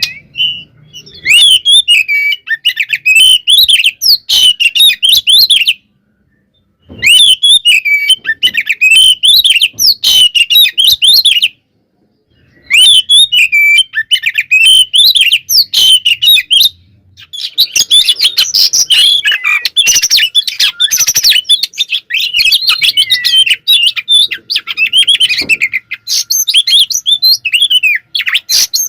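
Oriental magpie-robin singing loudly in agitated fighting mode: rapid, varied phrases of high whistles sliding up and down. The song breaks off twice into complete silence, about six and twelve seconds in.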